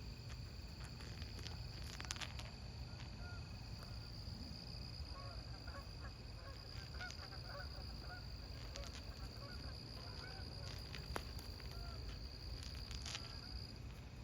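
Night insects in a backyard giving a steady high-pitched trill that stops near the end, with scattered faint clicks and a cluster of short faint calls through the middle.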